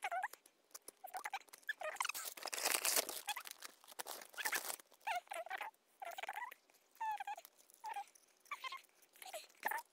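A string of short, squeaky animal calls that bend in pitch, coming about once a second. Plastic toy wrappers rustle and tear about two to three seconds in.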